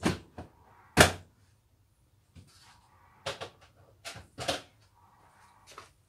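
Indesit dishwasher door pushed shut: two sharp thunks about a second apart, the second the louder, followed by a few lighter knocks and clicks.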